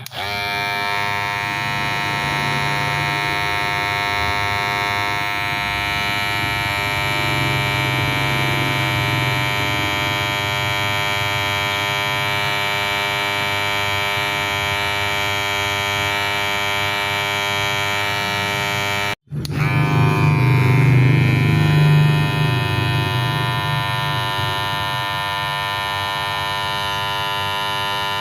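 Electric hair clipper buzzing steadily. It cuts out for an instant about two-thirds of the way through, then comes back a little louder for a few seconds before settling.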